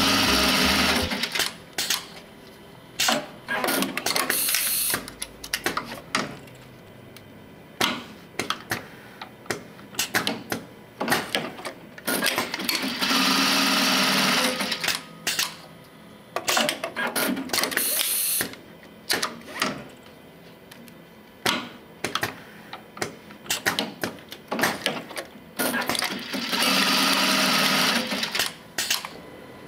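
Brother industrial sewing machine in an automated belt-sewing station, stitching in three short bursts about thirteen seconds apart. Between the bursts come many sharp clicks and knocks from the station's pneumatic cylinders and clamps, and twice a brief high hiss.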